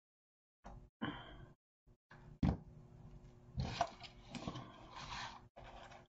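Rustling and scraping of artificial boxwood stems and deco mesh being handled as the stems are pushed into a floral block. A single sharp click comes about two and a half seconds in.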